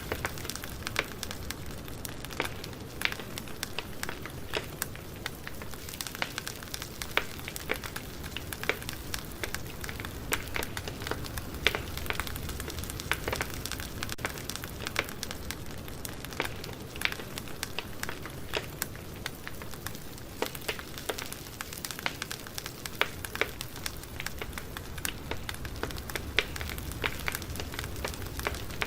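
Campfire burning with steady hiss and frequent sharp crackles and pops of burning wood.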